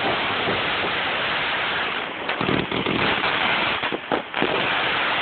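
Consumer fireworks finale: a dense, steady crackle for about the first two seconds, then a flurry of pops and two sharp bangs about four seconds in.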